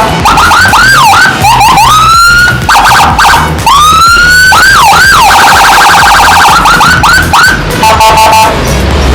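Electronic vehicle siren, a Whelen HHS tone chip driving a YG100I siren speaker through a Landun CJB100PD module, cycling through its tones. It gives quick up-and-down yelps, long rising whoops and stretches of rapid stuttering warble, very loud, until it stops near the end.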